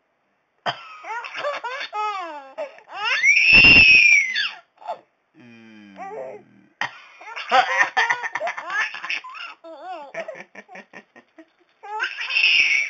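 A 5.5-month-old baby laughing in repeated bursts, with one loud, long squeal about three seconds in, set off by a man's coughing.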